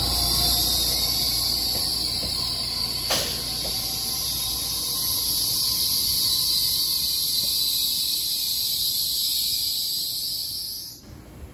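Taiwan Railway EMU3000 electric train rolling slowly alongside the platform as it comes in to stop, with a steady high hiss over a low rumble. There is a single sharp click about three seconds in, and the sound cuts off near the end.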